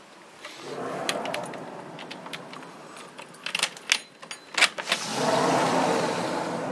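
A low, noisy drone that swells louder about five seconds in, carrying faint steady tones: the strange sky sound that the recorder is hearing. Sharp clicks and a jangling rattle, like keys or handling, break in around the middle.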